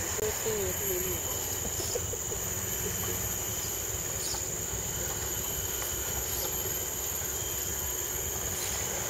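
A scale RC rock crawler truck creeping over rocks, its small electric motor and gears whirring low, with a few faint clicks of tyres on stone. Over it runs a steady high-pitched insect drone from the surrounding forest.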